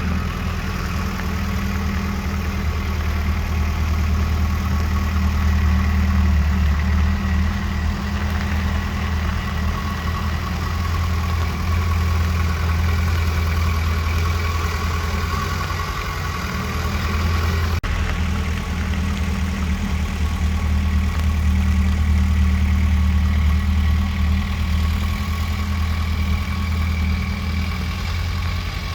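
Bulldozer's heavy diesel engine running steadily, its low hum rising and falling slowly in loudness.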